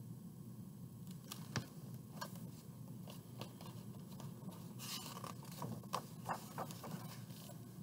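Pages of a large hardcover picture book being handled and turned: faint scattered paper rustles and soft taps, busiest about five to six seconds in, over a low steady room hum.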